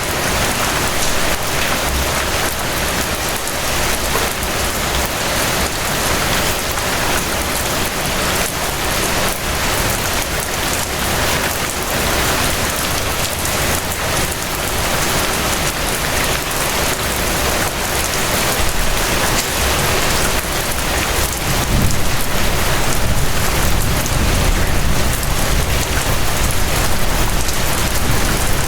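Steady rain falling, a dense patter of drops on a surface. A deeper low rumble grows a little louder about three-quarters of the way through.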